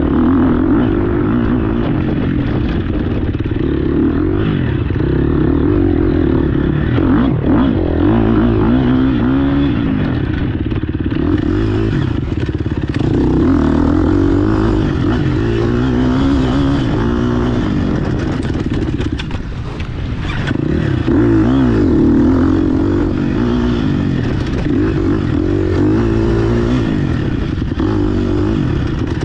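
GasGas EX 250F single-cylinder four-stroke dirt bike engine under hard riding, its pitch rising and falling again and again as the throttle opens and closes, with a brief drop about two-thirds of the way through.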